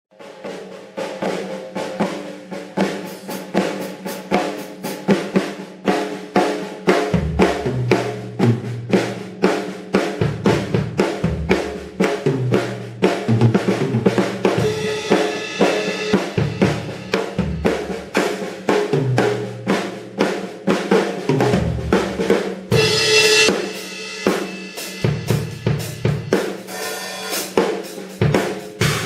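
Sonor Force 2007 drum kit played solo: fast runs of snare and tom strikes over bass drum, with deeper drum hits coming in about a quarter of the way through. Paiste cymbals ring out in two bursts past the halfway point.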